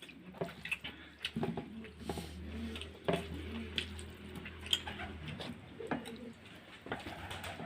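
Close-up chewing and mouth smacks from someone eating rice and bathua greens, a run of irregular wet clicks. Pigeons coo in the background.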